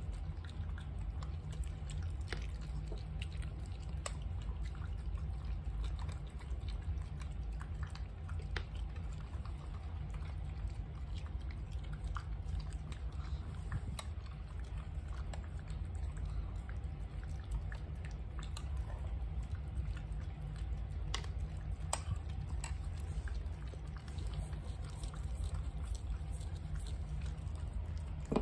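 Small dogs, a Pomeranian and Shih Tzus, eating kibble and wet food from bowls and off the floor: chewing and many small scattered clicks, over a steady low hum.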